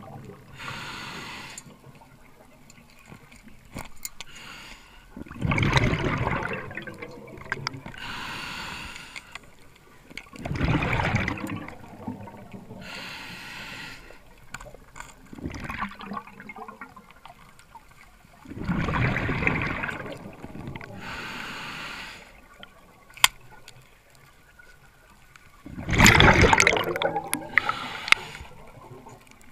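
Scuba diver breathing through a regulator underwater: a hissing inhale, then a burst of exhaled bubbles, about every five seconds, five or so breaths in all.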